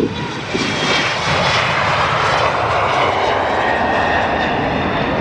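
Twin turbofan engines of an Embraer E-Jet at takeoff thrust as it rotates and lifts off: a loud, steady jet roar with a faint whine riding on it.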